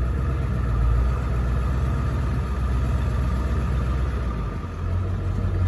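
Truck engine running at low speed in four-wheel-drive low, heard from inside the cab as a steady low drone; the note shifts slightly near the end.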